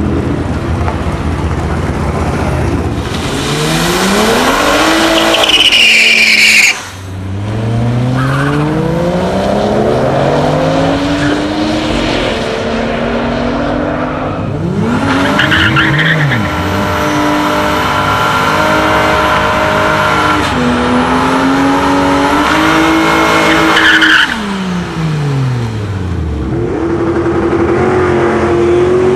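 Toyota Supra engine revving hard and accelerating, its pitch climbing and falling again and again through gear changes, with bursts of tire squeal. The sound breaks off abruptly about seven seconds in and picks up again at full throttle.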